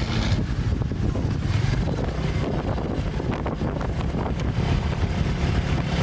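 Motorbike engine running while riding, with wind buffeting the microphone.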